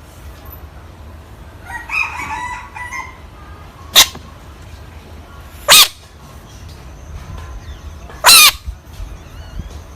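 A frog screaming: three loud, shrill, short screams about four, six and eight seconds in, the last the longest and wavering in pitch, with a softer rasping call about two seconds in.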